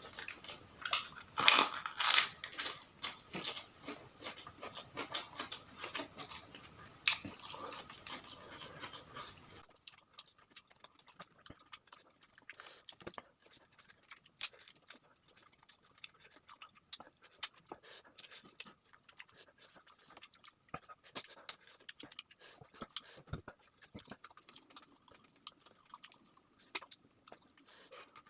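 A person chewing food close to the microphone: a steady run of wet mouth clicks and smacks, dense and louder for the first ten seconds or so, then sparser and quieter.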